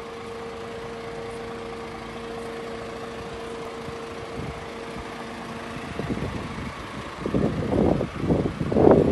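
Steady engine hum with a held drone, typical of a diesel truck idling. From about six seconds in, wind buffets the microphone in growing gusts that drown it out.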